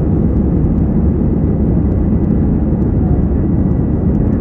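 Steady low roar of jet engines and rushing air inside the cabin of an Airbus A320-family airliner climbing out after takeoff.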